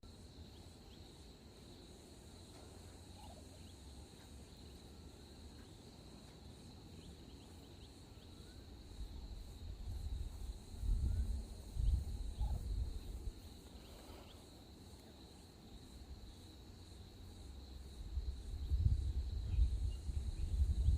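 Steady high-pitched drone of insects, with a few faint bird chirps. Low rumbles on the microphone come about ten seconds in and again near the end.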